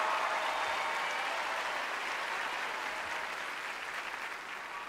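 Studio audience applauding, the clapping slowly dying down.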